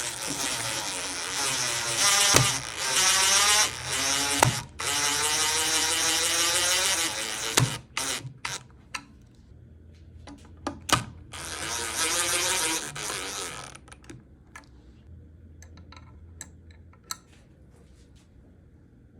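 A small motor whirring loudly with a shifting pitch for several seconds, then a few sharp clicks, then a second shorter spell of whirring, ending in faint ticks.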